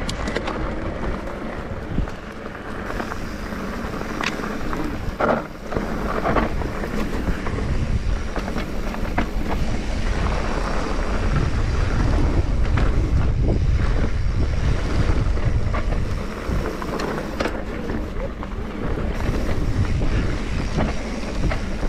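Mountain bike riding a bike-park trail: wind buffeting the microphone over the rumble of the tyres and the rattle of the bike, with sharp knocks from bumps now and then. The rumble grows louder about halfway through.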